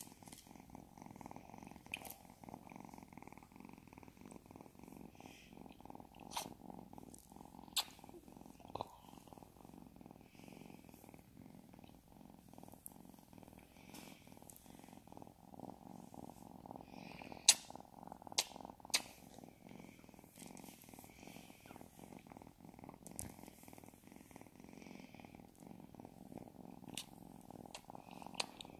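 Burmese kitten purring steadily while being stroked. A few sharp clicks sound now and then, the loudest about halfway through.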